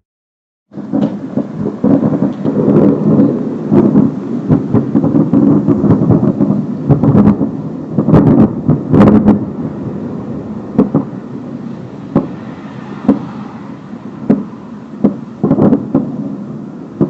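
Loud rumbling with many sharp cracks and pops, starting suddenly about a second in.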